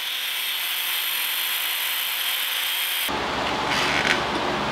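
Corded angle grinder grinding on the steel end of a seized front J-arm pivot: a steady, high, hissing whine, changing about three seconds in to a rougher, lower grinding sound.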